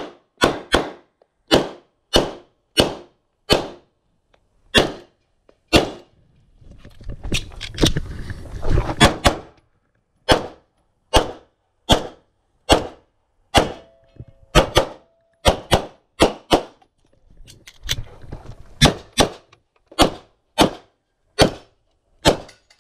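Pistol firing about two dozen single shots, mostly half a second to a second apart, with a break of about three seconds a third of the way in filled by rustling and scuffing noise.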